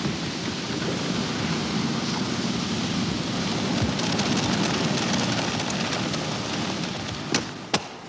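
Pool of molten cast iron in a damp sand mold, hissing and crackling steadily as steam is driven from the moist sand. Two sharp cracks come near the end.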